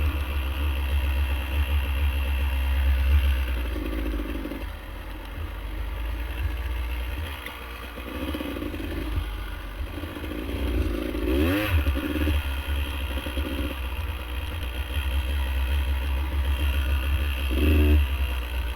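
Off-road vehicle engine running on a trail ride, its revs rising and falling, with a quick rev change about two thirds of the way through. A low wind rumble on the helmet-camera microphone sits beneath it.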